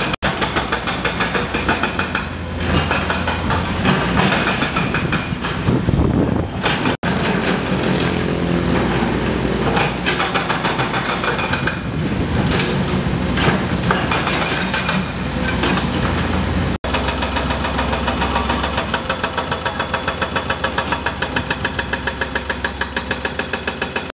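Komatsu hydraulic excavators' diesel engines running, with scattered knocks. After a cut late on, the engine sound takes on a steady pulsing of about four beats a second.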